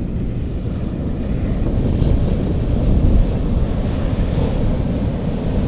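Sea waves washing onto a beach, with wind buffeting the microphone into a steady low rumble.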